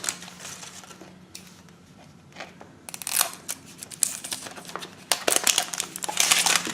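Plastic toy packaging crinkling and rustling in quick, irregular bursts as it is handled and opened, quieter for the first couple of seconds and busier from about three seconds in.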